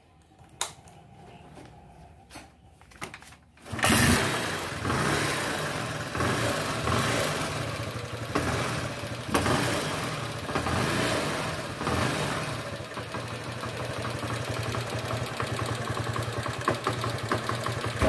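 Carbureted single-cylinder motorcycle engine started after a few clicks, catching about four seconds in. Its revs rise and fall with the throttle several times, then it settles into a steady idle, a test run after the carburetor was cleaned and its jet opened out with a wire.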